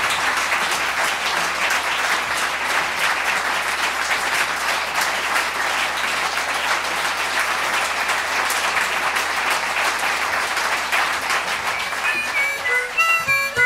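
Audience applauding with a steady, dense clatter of clapping. Near the end the applause thins and a short run of instrument notes starts the song.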